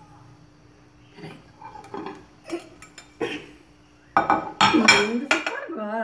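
Glass dishes knocking and clinking as a cake is turned over between two glass plates: a few light knocks at first, then louder clattering and scraping of glass on glass in the last two seconds.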